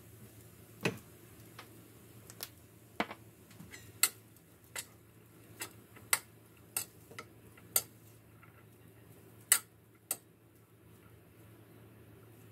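A series of sharp, irregular taps and clinks of kitchenware, about a dozen in ten seconds, then they stop.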